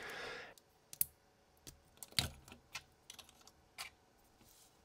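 Light clicks and taps of hard plastic and die-cast toy robot figures being handled, their parts and a small weapon being fitted into storage. The clicks are scattered and irregular, with a few sharper ones about a second in, a little after two seconds and near four seconds.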